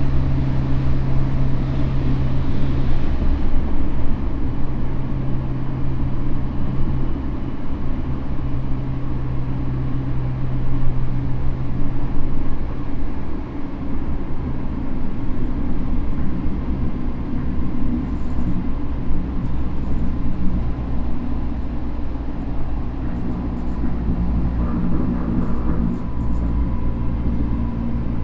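Interior running noise of a Tokyo Metro N05 series electric train with Hitachi IGBT inverter control, travelling at speed: a steady rumble of wheels on rail, with faint steady tones from the traction equipment.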